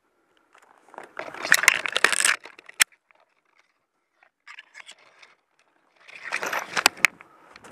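Rustling and crunching of dry leaf litter and brush underfoot in two bouts, about a second in and again near the end, with a few sharp clicks among them.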